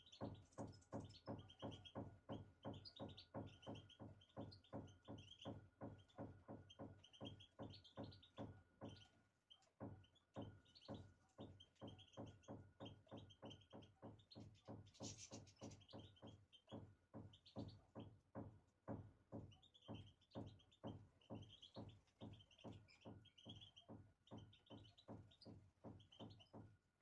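European goldfinches twittering faintly, short chirps coming in quick runs. A steady low knocking, about two to three beats a second, runs underneath.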